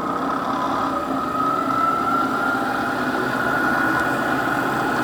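Clausing Kondia milling machine spindle running steadily in low gear: a steady machine hum with a whine that creeps slightly up in pitch. The seller says the spindle is in real nice shape.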